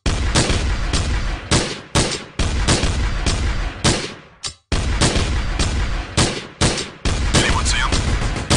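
Gunfire sound effects laid over the video with music: a rapid string of heavy shots, about three a second, with a short break about four and a half seconds in.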